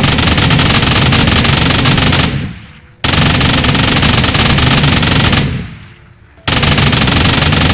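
M134D Minigun, a six-barrel 7.62×51mm electrically driven rotary machine gun, firing long continuous bursts with the shots too fast to pick apart. Three bursts of about two and a half seconds each, separated by brief gaps, each trailing off as it stops.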